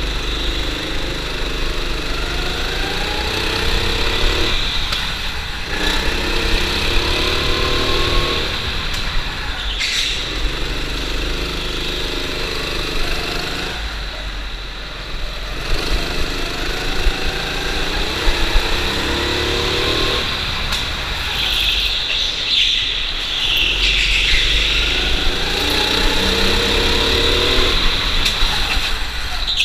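Go-kart engine heard from on board, rising in pitch as it revs up along each straight and dropping away into the corners, about five times, over a steady low rumble.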